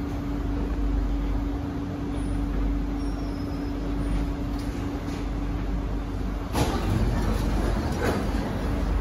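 Kawasaki & CSR Sifang C151B metro train slowing into an underground station: steady running noise with a constant hum from inside the car. About six and a half seconds in, the hum stops and a sudden hiss of air starts as the train comes to a stop.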